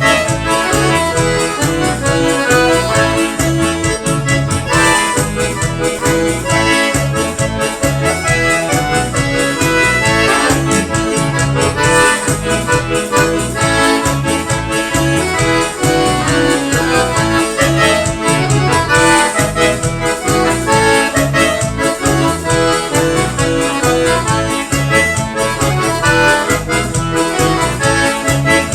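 A forró band playing an instrumental arrasta-pé led by accordion, over a steady driving low beat.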